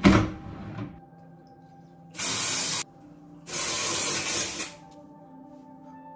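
Aerosol can sprayed into hair in two bursts of hiss, a short one and then a longer one. A loud thump at the very start.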